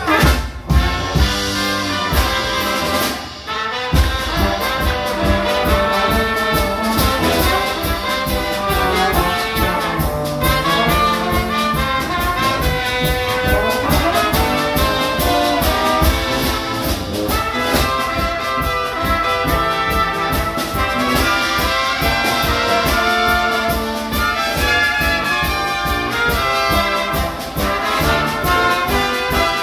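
Live brass band playing: tuba, trombone and trumpets over a drum kit's steady beat. The bass and drums drop out for a moment about three seconds in, then the beat comes back.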